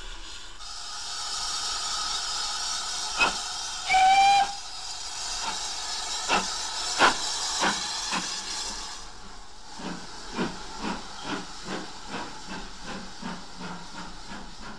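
GWR 5100 class 2-6-2T tank engine No. 4178 standing with steam hissing, giving a short whistle about four seconds in amid a few sharp strikes. From about ten seconds in, its exhaust beats start up, slow at first and quickening as the engine pulls away.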